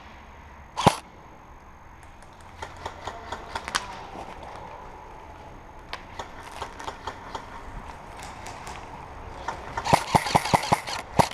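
Airsoft guns firing: one sharp loud shot about a second in, scattered fainter shots after it, and a rapid string of shots near the end.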